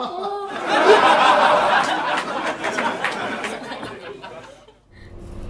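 Several people laughing together in a room, loudest about a second in and dying away over the next few seconds. A low steady rumble starts just before the end.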